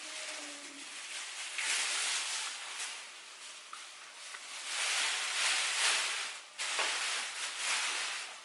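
Plastic food packaging rustling and crinkling as it is handled, in two long bursts about two seconds in and again around five to six seconds, with shorter rustles near the end.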